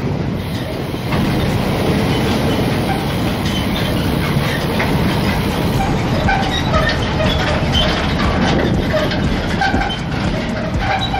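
Steady loud rumble of wind and road vibration on a bicycle's handlebar-mounted camera while riding, with some rattling.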